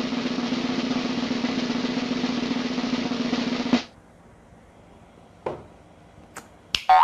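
A drum-roll sound effect on snare drum runs for about four seconds and cuts off abruptly. Near the end, a few short knocks as a small glass is set down on the table.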